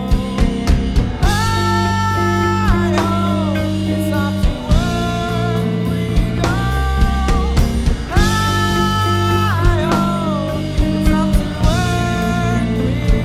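Post-punk rock song: electric guitar, bass and drum kit playing steadily under a melody line that holds long notes and bends at their ends.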